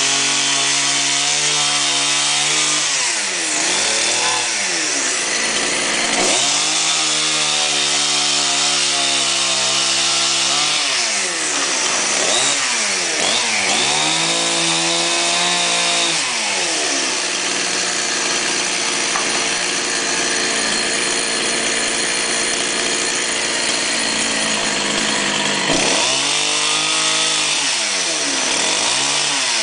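Two-stroke chainsaw cutting limbs from a guava tree, the engine revving hard and dropping back toward idle again and again. In the second half it holds at steady high revs for several seconds.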